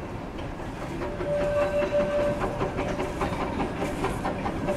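Narrow-gauge steam locomotive running slowly under steam, its exhaust beats coming in a steady rhythm and growing louder about a second in. A steady high tone is held for about a second soon after.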